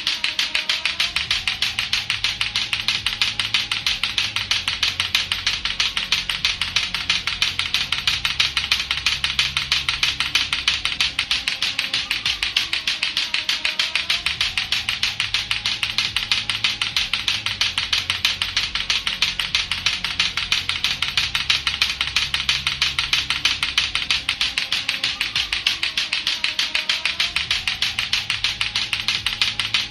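Latto-latto clacker toy, two hard plastic balls on a string knocked together in rapid, steady clacking. Underneath, a low looped backing repeats about every 13 seconds.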